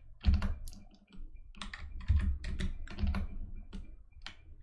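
Typing on a computer keyboard: a run of irregular key clicks as a number is typed into a field.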